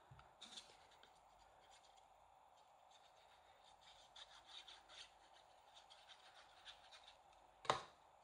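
Faint scratching and rubbing of paper being handled and worked with craft tools, with one sharp click near the end.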